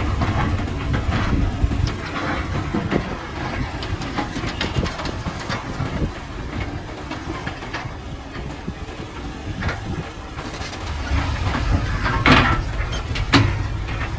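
Heavy earthmoving machinery running with a steady low diesel rumble, with scattered knocks and clatter of rock being moved. There is a louder crash of rock about twelve seconds in and another about a second later.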